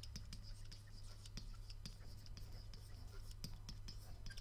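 Faint scratching and light tapping of a stylus writing a word on a digital writing surface, a run of small irregular clicks over a low steady hum.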